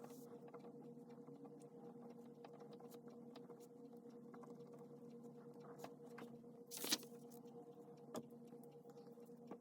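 Faint pen strokes scratching and tapping on paper during handwritten copying, over a steady low electrical hum. About seven seconds in there is one louder brief rustle, like the hand or paper shifting.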